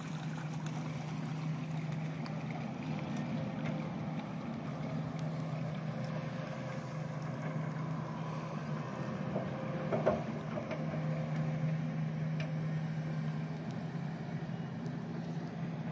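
An engine running steadily at a constant pitch, with a short knock about ten seconds in.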